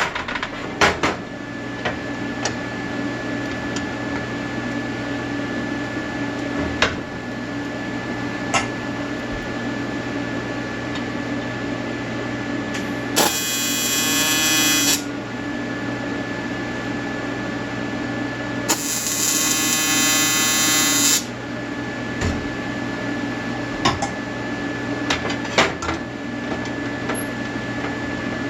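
Welding arc buzzing in two bursts, about two and two and a half seconds long, over a steady hum from the welding machine, with occasional sharp clicks.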